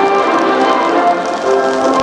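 Music with several sustained notes held together and changing every half second or so, with faint light ticks behind it.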